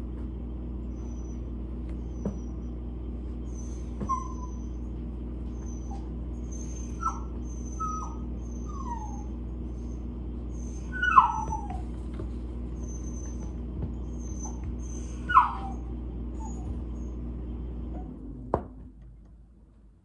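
A dog whining in short, high whimpers that fall in pitch, with two louder yelps about halfway through and again later. Underneath is a steady low hum that cuts off near the end.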